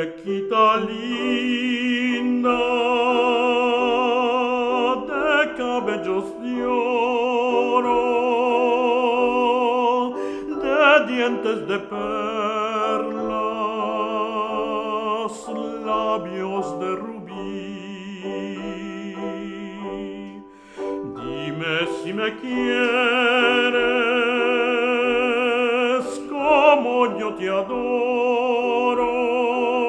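Operatic tenor singing a Spanish-language song in classical style with a wide vibrato, accompanied by piano. There is one short break in the line about two-thirds of the way through.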